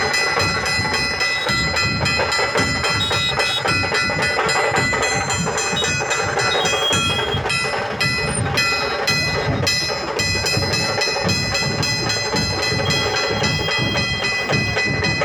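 Loud, continuous din of a large street crowd at a procession, with music or drumming running through it and a steady rhythmic beat.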